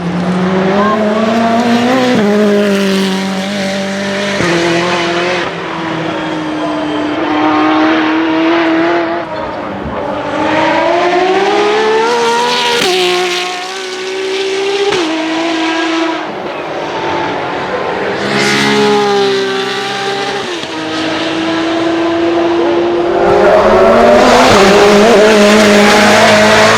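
Ferrari P80/C's 3.9-litre twin-turbo V8 revving and accelerating hard, its pitch climbing, stepping and dropping again several times, with stretches held at a steady pitch. It is loudest near the end.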